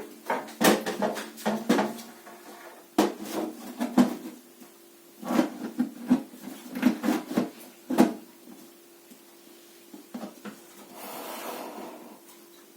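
Plastic knocks and clatter in irregular clusters as a propagator lid is pushed and worked into place over seed trays, with a short rubbing scrape near the end.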